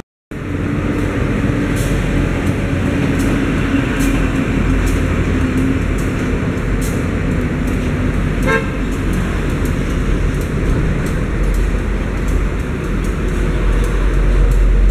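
Diesel-electric locomotive running slowly into the station: a steady low engine rumble, with one very short horn toot about halfway through.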